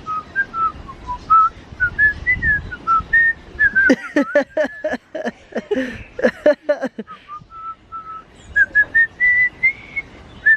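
Whistling: a string of short, clear notes that wander up and down in pitch like a tune, broken in the middle by a few seconds of louder, rougher sounds.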